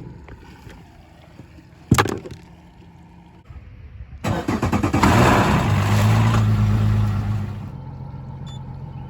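Boat outboard motor starting up, running loud for a few seconds, then settling to a steady idle. A single sharp click comes shortly before it starts.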